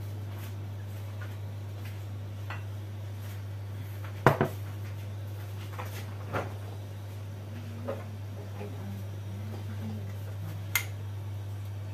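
A few sharp knocks and clicks of kitchen things being handled on a counter, one of them a bottle set down beside a plastic mixing bowl. The loudest is a double knock about four seconds in, with single clicks later. A steady low hum runs underneath.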